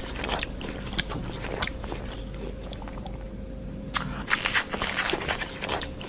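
An animal chewing and crunching food: irregular crisp crunches and bites, coming thickest again from about four seconds in.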